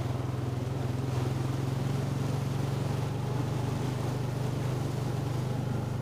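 ATV (quad bike) engine running at a steady, even pitch as the machine moves slowly along a rough, flooded forest track.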